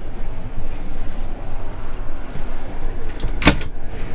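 Steady low background rumble, with one sharp click about three and a half seconds in as the catch on a motorhome's wooden wardrobe door is released.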